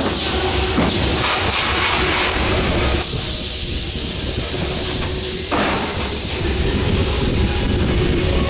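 Automatic case erector and carton-sealing machine running, with pneumatic air cylinders forming the cases: a steady low hum under a loud noisy wash that shifts every second or two as the mechanisms cycle.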